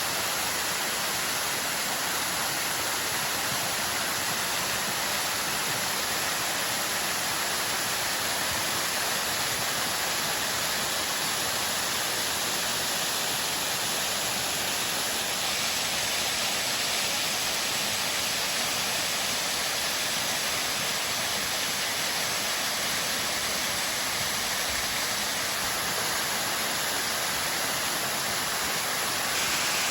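Waterfall: water rushing as a steady hiss, its texture shifting slightly about halfway through and again near the end.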